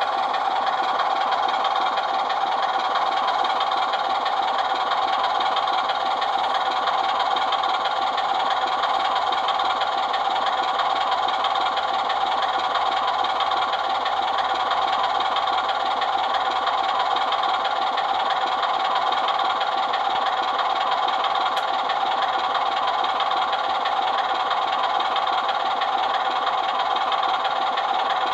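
The model Class 24 locomotive's on-board sound decoder playing a steady Sulzer diesel engine sound through its small speaker. The sound is thin, with almost no bass, and it keeps an even level throughout.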